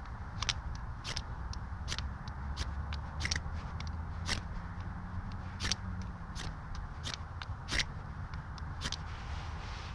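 Ferrocerium rod struck again and again with its striker: short rasping scrapes, irregular at roughly two a second, throwing sparks and shavings into a Trangia spirit burner in an attempt to light it.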